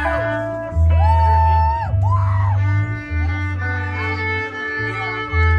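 Live band playing: deep, sustained bass notes change about once a second under held chords and a high melody line that slides and bends between notes.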